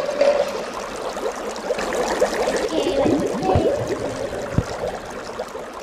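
Water running from a tap into a bathroom sink, with irregular splashing as a face is washed.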